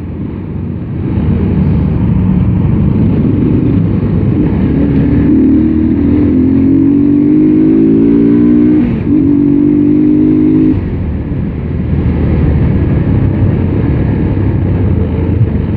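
A motorcycle engine pulling under throttle, with a steady low wind rumble on the microphone. About five seconds in, the engine note climbs steadily. Near nine seconds it dips sharply as the bike shifts up, then holds level and eases off about eleven seconds in.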